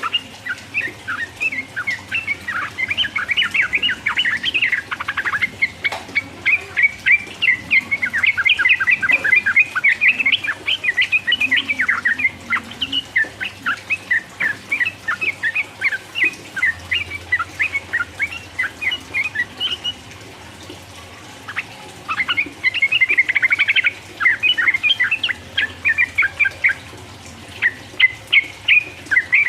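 Yellow-vented bulbul (trucukan) singing a fast, continuous chattering song of quick chirped notes, with a short pause a little past the middle.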